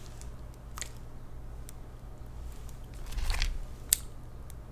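Quiet handling sounds: a few light clicks and a short rustle about three seconds in, over a low steady hum.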